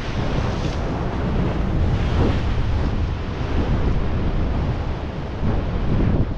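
Wind buffeting the microphone, with surf washing against the rocks of a breakwater; a dense, steady noise that swells a few times.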